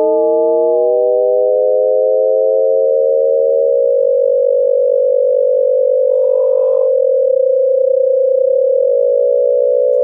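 Synthesized Shepard tone from Ableton's Max for Live Shepard Tones instrument: a chord of pure sine tones whose lower voices climb in small steps while the upper ones sink, until they close into a tight, beating cluster around one middle pitch.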